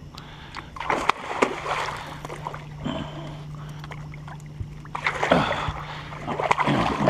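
Water splashing and sloshing at the boat in two spells as a hooked blue catfish is fought toward the surface, over a steady low hum from the boat's motor that stops about five seconds in.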